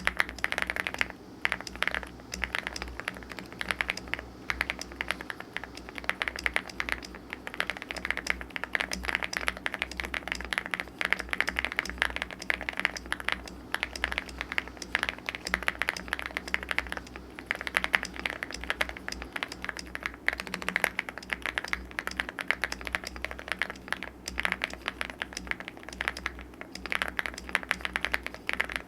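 Continuous typing on a Velocifire Lucky65 65% mechanical keyboard, a gasket-mounted board with a flexible polycarbonate plate and foam layers: a steady run of soft, foamy keystrokes. The plate-mounted stabilizers give a ticking noise.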